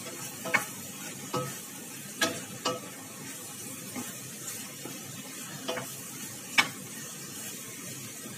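Chicken and sliced fresh mushrooms sizzling steadily in a stainless steel pot as they are stirred with a wooden spoon, the spoon knocking against the pot now and then.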